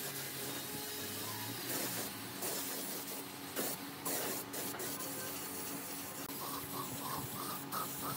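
Compressed-air spray gun hissing in several bursts as a wood finish is sprayed onto a turned wooden vase, over a steady low hum.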